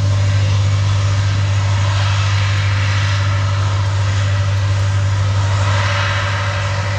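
Titan armoured bridge layer's diesel engine running at a steady speed: a loud, constant low hum.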